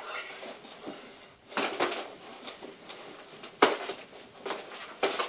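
Boxing gloves hitting as punches land on padded headgear and guarding gloves: a few sharp thuds, about three loud ones, with rustling and shuffling between.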